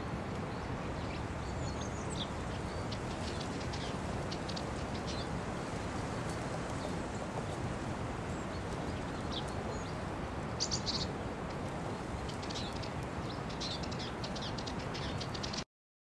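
Small birds chirping, short high calls scattered over a steady outdoor background hiss, with a clear cluster of chirps about two-thirds of the way through; all sound stops abruptly near the end.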